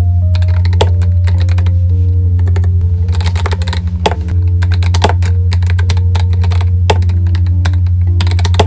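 Fast typing on a Varmilo Beijing Opera mechanical keyboard with EC Sakura switches: a dense run of key clacks with no spring ping. Background music with a steady bass plays under it.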